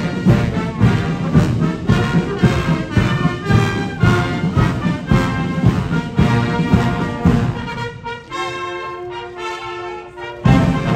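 A Guards military band plays a march as it passes, with trombones and other brass over a steady drum beat. About eight seconds in the drums drop out and the brass holds long notes; the drum beat comes back near the end.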